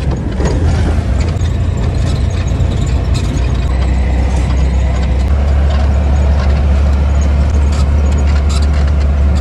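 Steady engine drone and road noise inside the cab of a moving vehicle at cruising speed, with scattered light rattles.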